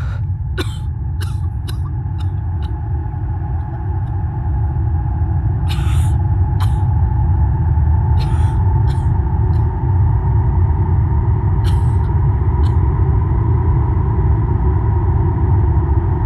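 Ominous sound-design drone: a loud, steady low rumble under a held tone that swells about four seconds in. Short hissing clicks are scattered through the first part.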